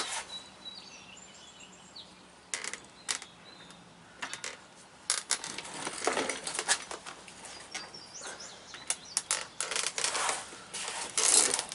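Scattered metallic clinks and knocks of hand tools and parts at a truck driveshaft's U-joint, sparse at first and busier from about five seconds in. Birds chirp faintly in the background.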